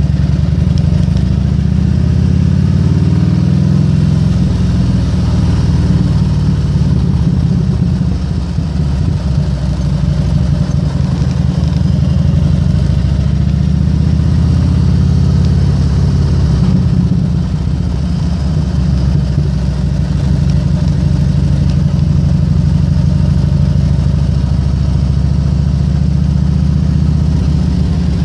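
Harley-Davidson Road King's V-twin engine running at low speed, a steady low rumble with a few gentle rises and falls in revs.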